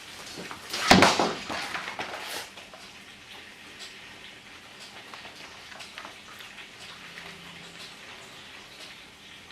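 A sudden loud clattering impact about a second in, dying away over a second or so, then scattered faint ticks over a steady hiss.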